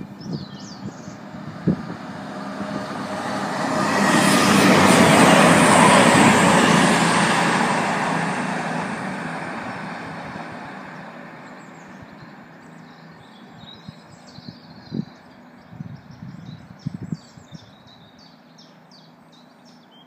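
CrossCountry Voyager diesel multiple unit passing: the sound of its diesel engines and wheels swells to a peak about five seconds in, then fades as the train goes away. Birds chirp once it has died down.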